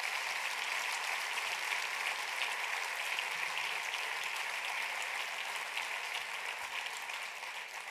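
Theatre audience applauding steadily, the clapping tapering off near the end.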